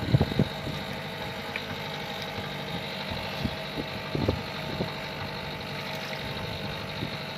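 Boat engine running steadily at idle, with a few short low knocks just after the start and again about four seconds in.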